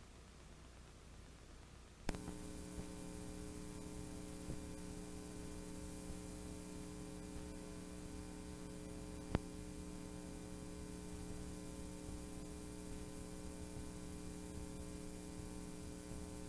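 Steady electrical mains hum with hiss from a videotape playing blank tape past the end of the recording. It starts with a sharp click about two seconds in, and one more single click comes about halfway through.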